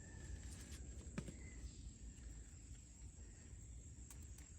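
Quiet outdoor background with a low rumble, a single sharp click about a second in and a few faint ticks near the end.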